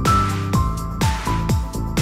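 Background electronic music with a steady beat, about two hits a second, with falling bass-drum sweeps and held synth notes.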